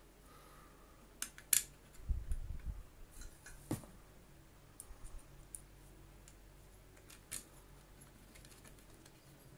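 Scattered light clicks and taps of small parts being handled while a carbon brush holder is fitted to a Hoover Junior 1334A's vacuum motor, with a dull thump about two seconds in and a sharp click near four seconds.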